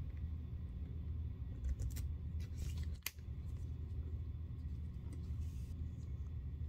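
Small sharp metal clicks and scrapes as a pointed metal pick works at the metal end cap of a leather handbag handle to detach it, the loudest click about three seconds in, over a steady low hum.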